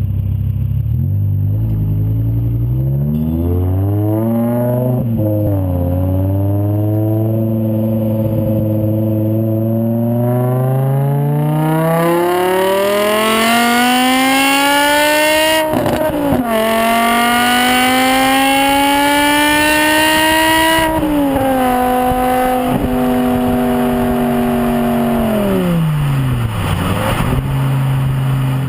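BMW M5 E61's 5.0-litre V10 running through straight pipes with all four silencers removed. It starts near idle with a short blip, then climbs steadily in revs under acceleration. About halfway there is a sudden drop and re-climb like a gear change, then the throttle closes and the revs fall slowly back to idle near the end.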